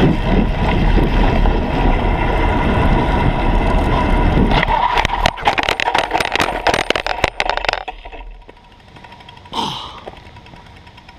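Steady wind rush and tyre noise from a BMX bike ridden fast on pavement. About four and a half seconds in, a clattering crash of rapid knocks and scrapes follows as the bike goes down, its front wheel jammed by a dog's leash. The clatter dies away by about eight seconds.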